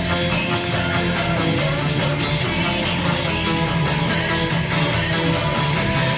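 Rock-style music with guitar, at a steady loud level.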